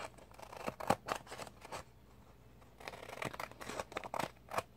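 Scissors cutting through stickered paper planner pages: a run of short snips, a pause of about a second midway, then more snips.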